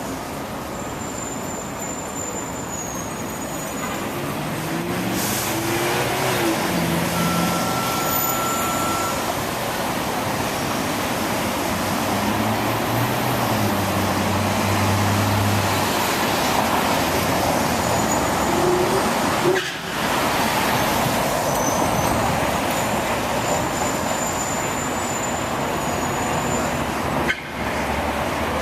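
Steady rumble of city traffic, with vehicle engines rising and falling in pitch and a brief steady high tone about seven seconds in. The recorder takes this kind of rumble for booming sounds from the sky.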